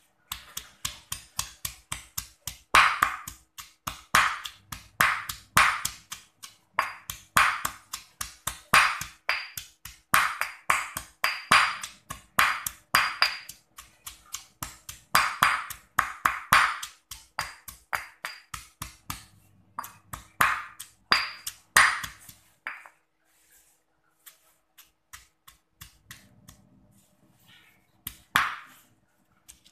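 Stone pestle pounding in a granite mortar (batu lesung), a rapid, even run of ringing clacks, about three strikes a second, as shallots, chillies and turmeric are crushed into a spice paste. The pounding stops about 23 seconds in, followed by a few soft taps and one more loud strike near the end.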